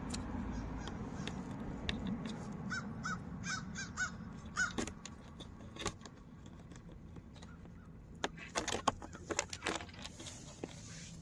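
Small clicks and taps of plastic push clips being handled and pressed into a car's underbody panel, with a quicker cluster of clicks near the end. A bird calls in a short run of repeated calls a few seconds in.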